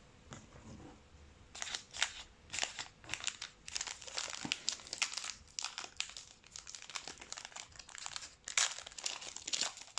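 A trading-card pack wrapper being crinkled and torn open by hand, an irregular run of crackling starting about a second and a half in.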